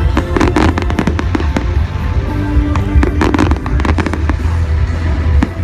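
Fireworks going off in quick succession, many sharp bangs and crackles, with music playing alongside.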